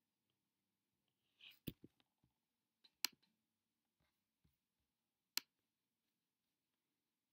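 A few sharp computer mouse clicks with fainter taps between them, the loudest about one and a half, three and five and a half seconds in, with a short hiss just before the first; otherwise near silence.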